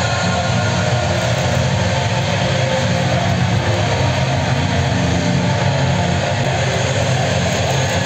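Stadium crowd noise: a steady roar of many voices.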